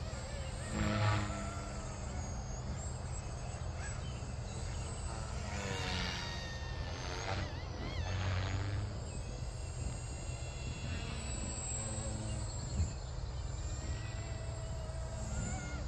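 Distant radio-controlled aerobatic aircraft's motor and propeller droning overhead, the pitch wavering up and down as it manoeuvres, over a steady low hum. A single sharp click comes about three seconds before the end.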